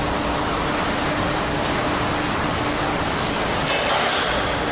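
A steady, loud rushing noise with a faint low hum running underneath it.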